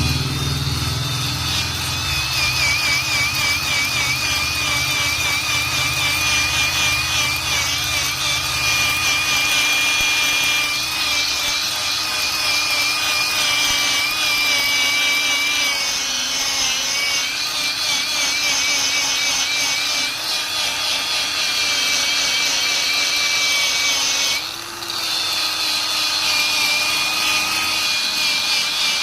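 Power tool running with a wire brush or abrasive polishing wheel rubbing on a metal surface to clean it for welding. The motor whine wavers in pitch as the wheel is pressed on, and it dips briefly near the end.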